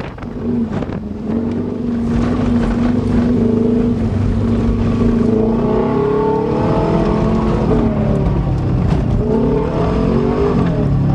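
Subaru Legacy's boxer engine pulling the car through fresh mud, holding a steady note for several seconds, then revving up and down about six seconds in and again near the end.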